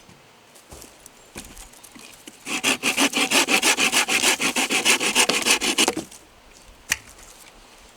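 Hand saw cutting through wood in a fast run of rasping strokes lasting about three and a half seconds, then stopping, followed by a single sharp click.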